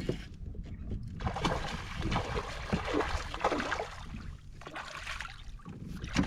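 Water splashing and sloshing in irregular bursts beside a kayak, starting about a second in, as a hooked fish is fought to the boat, over a low, steady rumble.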